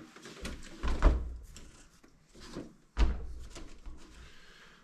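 Knocks and clunks of things being handled and set down on a workbench, with two louder thuds, about a second in and about three seconds in, among lighter clicks.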